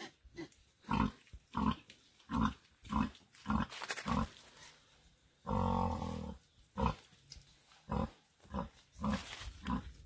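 Sow grunting in a steady rhythm, a short low grunt about every two-thirds of a second, while her piglets suckle: the rhythmic nursing grunt of a sow feeding her litter. One longer, louder call comes about halfway through.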